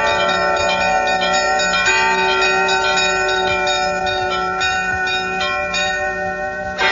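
Several bronze monastery bells rung by hand in a quick, rhythmic pattern of strikes, their tones overlapping and ringing on.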